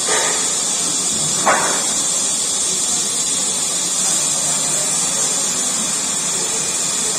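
Steady high hiss with a low background murmur under it, and a short sharp sound about a second and a half in.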